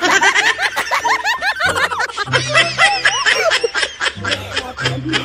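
Rapid, high-pitched laughter over background music with a low bass line.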